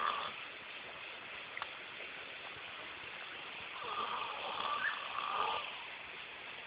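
A man snoring: one long snore, nearly two seconds, starting about four seconds in, over a steady hiss.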